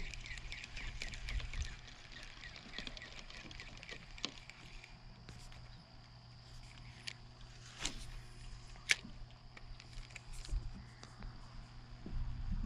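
Quiet outdoor morning ambience: rapid high-pitched insect chirping that fades after about five seconds, over a steady low hum. A few sharp clicks come around the middle.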